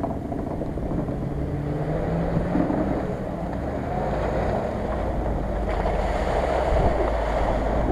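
Off-road SUV engines running as the vehicles drive across muddy ground, with wind on the microphone. There is a steady engine tone in the first few seconds.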